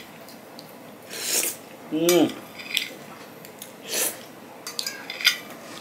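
A metal spoon scraping across a plate a few times, scooping up the last of the sauce, with light clicks of spoon on plate. A brief vocal sound with falling pitch comes about two seconds in.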